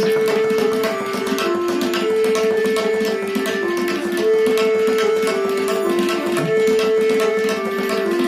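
Tabla playing a quick stream of strokes over a lehra, a short melody of held notes that repeats about every two seconds.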